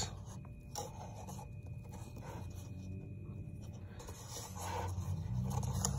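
Faint rubbing and handling noises as a camera is repositioned, with a short click about a second in, over a low steady hum.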